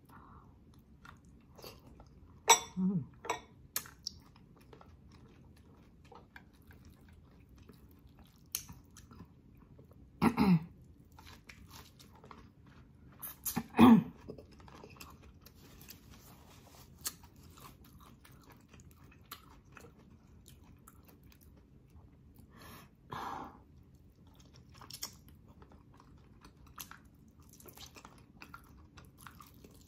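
Close-miked eating of boiled pork hock: wet chewing, smacking and sucking clicks. A few louder short mouth sounds, some with a brief falling pitch, are scattered through.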